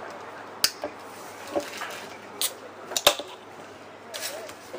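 Café clatter: a handful of sharp clacks and knocks, two close together about three seconds in, over a quiet room background.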